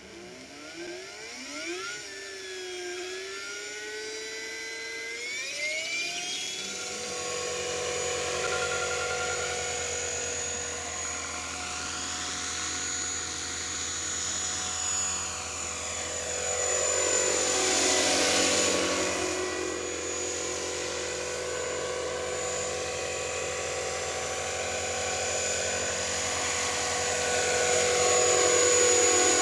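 Electric radio-controlled model helicopter (a T-REX 450 in an EC-135 scale body): a motor whine that climbs in pitch over the first six or seven seconds as the rotor spools up. It then settles into a steady whine with rotor hum as the model hovers. Near the middle the pitch swells up and falls back, and the sound grows louder about eighteen seconds in and again near the end.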